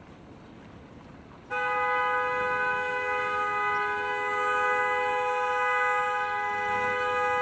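Car horn held down in one long, steady blast that starts suddenly about a second and a half in, after a quiet stretch of road noise. Its two tones hold without changing pitch.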